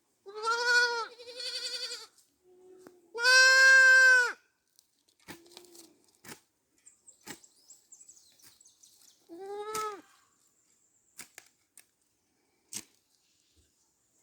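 Goat bleating: four quavering calls, two close together at the start, the loudest a second later, and a last one about nine seconds in. Faint clicks and knocks come between the calls.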